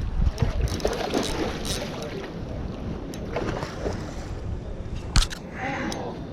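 Microphone rumble and handling noise with scattered clicks, and one sharp knock about five seconds in.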